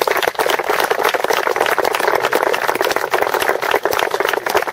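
Audience applauding: many people clapping in a dense, steady patter of claps.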